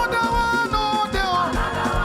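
Upbeat gospel praise music: a band playing with a steady, fast drum beat under sliding melodic lines.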